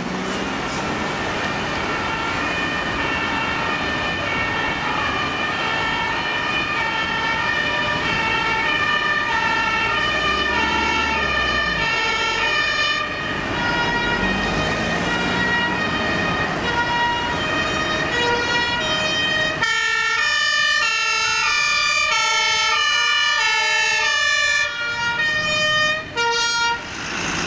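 German two-tone sirens (Martinshorn) of fire engines on an emergency run, each stepping back and forth between two pitches, with more than one horn overlapping out of step. Road traffic and engine rumble run underneath until about two-thirds of the way through, when the rumble drops away sharply and the horns stand out more clearly.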